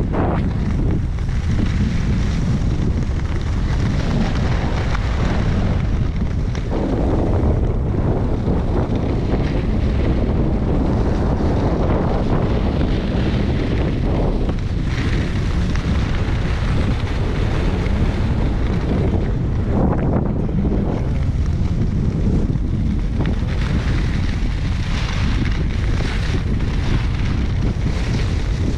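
Wind buffeting the microphone, a loud steady low rush. Swishes higher up come and go over it.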